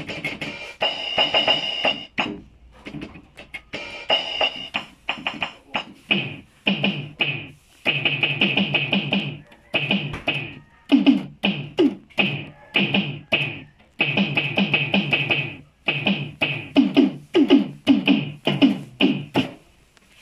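Yamaha PSR-150 portable keyboard played by hand: quick runs of notes in short phrases with brief pauses between, the keyboard being tested after a repair.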